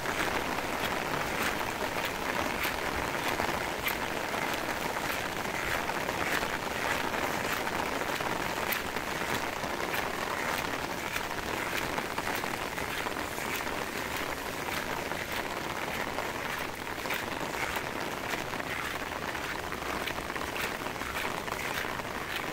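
Steady rain falling on a wet paved street: an even hiss with many sharp drop ticks close by.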